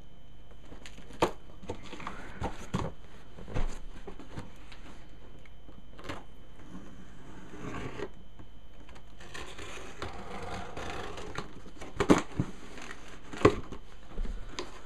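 Cardboard parcel being opened by hand: packing tape slit and pulled, box flaps lifted, rustling and scattered clicks. The loudest sounds are a couple of sharp knocks against the cardboard near the end.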